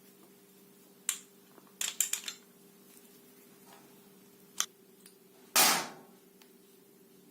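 Hard objects being handled and set down: a single click, then a quick run of three or four clicks, another click, and a louder short scraping rush near the end, over a faint steady hum.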